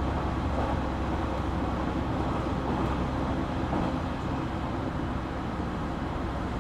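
JR Kyushu 817 series electric train running at steady speed: an even rumble of wheels on rail, heard from inside the car.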